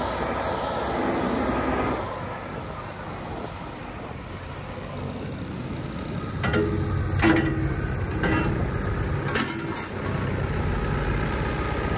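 Diesel engines running: the JCB 3DX backhoe loader's engine, then a Mahindra tractor's engine idling steadily. A few sharp knocks come in the middle, the loudest about seven seconds in.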